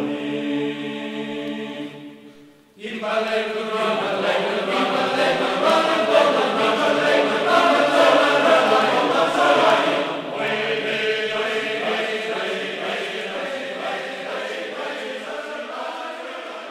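Background music of choir-like singing in long held notes. It breaks off briefly about two and a half seconds in, comes back fuller, and slowly fades near the end.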